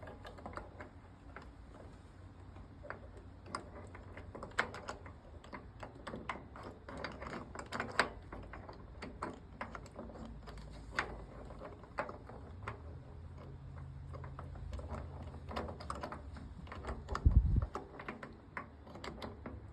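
Small metal parts of a lawnmower transmission clicking and clinking irregularly as they are handled during reassembly. A low hum runs for a few seconds in the second half, and one heavy thud comes near the end.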